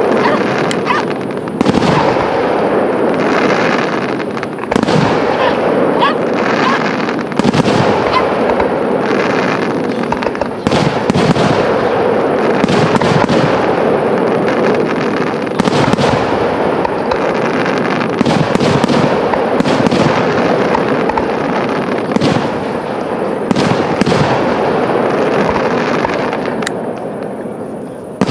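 Aerial fireworks display: shells bursting with frequent sharp bangs, one after another, over a continuous noisy wash. The barrage eases off briefly near the end.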